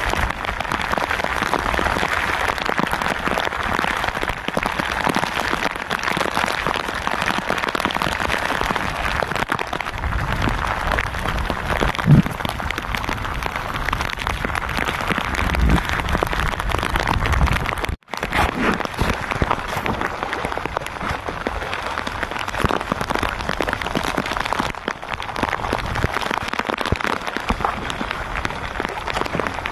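Steady rain falling on the sea and the fishing boat, an even hiss of patter. A dull knock about twelve seconds in and a smaller one a few seconds later.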